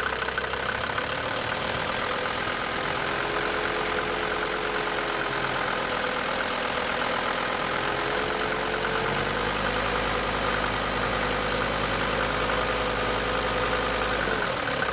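DB29 diesel engine running under throttle with its injectors knocking. The engine note shifts through the run and drops back abruptly near the end.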